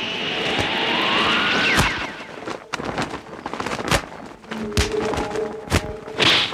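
Kung fu fight sound effects over music: a rushing whoosh rising in pitch for the first couple of seconds, then a string of sharp hits and thuds.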